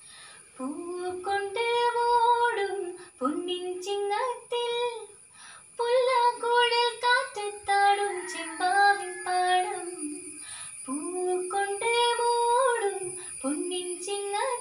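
A girl singing a Malayalam Onam song (Onappattu) solo, without accompaniment, in sustained phrases broken by short pauses for breath.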